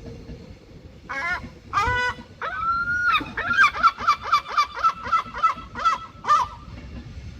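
Gull giving its long call: two short cries, a longer drawn-out note, then a fast run of about ten laughing notes at roughly three a second.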